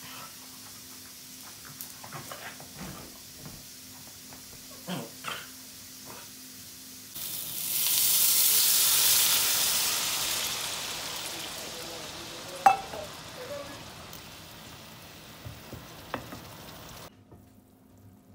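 Water poured into a hot frying pan of sliced carrots hisses and sizzles loudly as it hits the pan, starting suddenly and slowly dying away over several seconds, with one sharp knock of metal on the pan partway through. Before it, a few soft scuffles and knocks as two dogs play.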